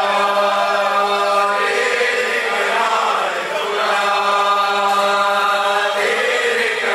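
A chorus of men's voices chanting a slow noha in unison, with a steady held low note beneath them.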